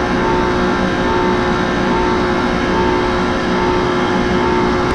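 Homemade hydraulic forging press's power unit running: a steady motor-and-pump drone with a constant whine.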